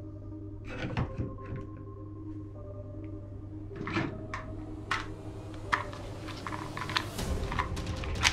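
Plastic toy guns being picked up and handled, giving scattered clicks and clacks that come more often in the second half, over a steady low hum.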